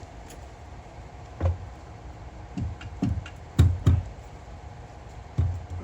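A series of about seven dull, irregular knocks as the jet pump's metal housing is shifted and bumped into place against the engine, the loudest pair coming just past the middle.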